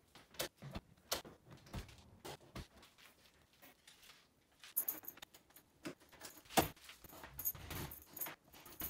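Scattered clicks, light knocks and metallic clinking from hands working on a PVC door frame and its fittings, with one sharper knock about two-thirds of the way through.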